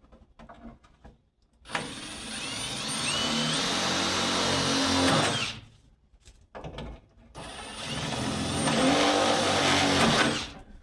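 Power drill with a small bit run twice, each for a few seconds, to mark the mounting-hole positions for a door panel. Its motor whine rises in pitch and then holds steady through each run.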